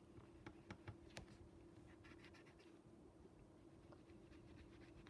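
Faint scratching of a coloured pencil drawing on a fabric sock, with a few light ticks in the first second and a short run of strokes about two seconds in.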